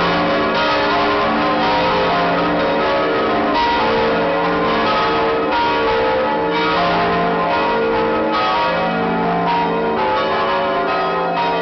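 Several large church bells swinging and ringing together in a full peal, heard close up inside the belfry. Clapper strikes come about once a second, and their overlapping tones at several pitches blend into continuous ringing.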